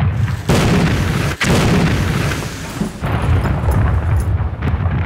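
Staged pyrotechnic explosion at an electrical box: a run of loud blasts and crackling, with fresh bursts about half a second and a second and a half in, dying down near the end.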